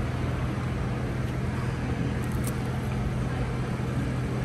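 A steady low mechanical hum with a constant pitch over an even background rush. A few faint high ticks come about halfway through.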